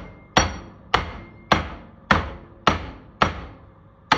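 Hammer blows bending a metal speaker grill by hand: a steady run of sharp strikes a little under two a second, each ringing briefly.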